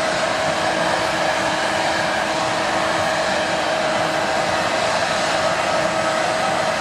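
Airbus A320's CFM56 jet engines running steadily: a constant rushing noise with a prominent steady whine.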